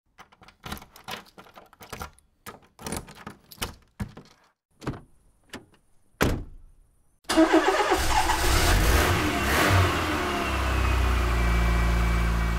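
A run of irregular clicks and knocks, then about seven seconds in an engine starts and revs loudly before settling into a steady low drone.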